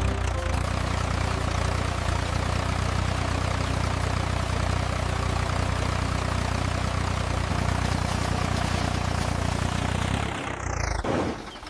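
Tractor engine running steadily, a low even drone. Near the end it briefly drops out under a short whoosh.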